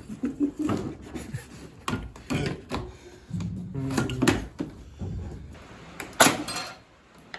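Sledgehammer blows on a Ford Focus's Zetec engine: several heavy strikes about two seconds apart, the loudest a little after six seconds in.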